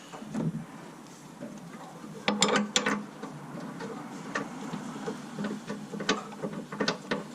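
Irregular metallic clicks and clinks of tools and parts being handled while a new engine mount is fitted, with a quick cluster of louder clinks about two and a half seconds in and scattered single clicks after.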